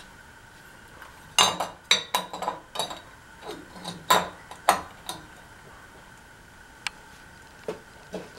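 Metal parts and hardware clinking and knocking as they are handled: a quick run of clinks in the first half, then a few single clicks.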